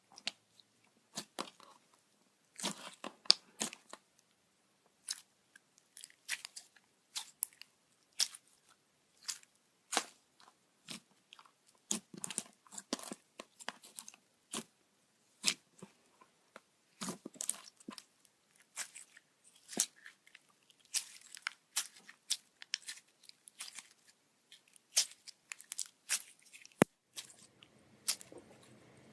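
Sticky slime being squeezed and stretched by hand, giving off irregular sharp clicks and pops.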